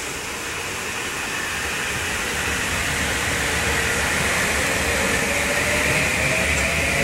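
Metro-North M8 electric multiple unit running past on wet track: a steady rushing noise that grows louder, with a faint whine rising slightly in the second half.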